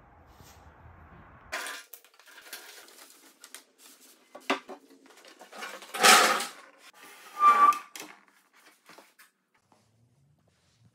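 Knocks and clatters of heavy wooden table parts being handled and shifted, with two louder scraping thuds past the middle, the second with a short squeak.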